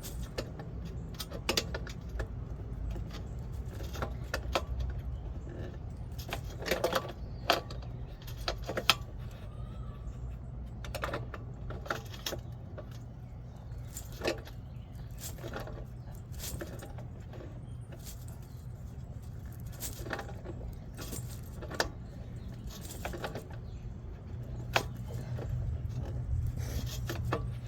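Irregular metallic clicks and clinks of vice grips working a fitting on a radiator as it is tightened, over a steady low hum.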